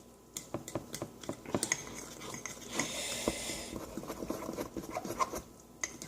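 A fork stirring cake batter in a mug: irregular clinks and taps of the fork against the mug, with a brief scraping rub about three seconds in.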